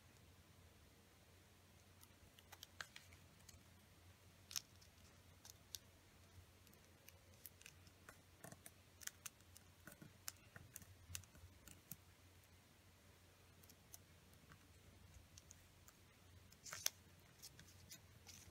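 Faint crackles and taps of a small sheet of origami paper being folded and creased by fingers, scattered irregularly and loudest in a cluster near the end, over a faint low hum.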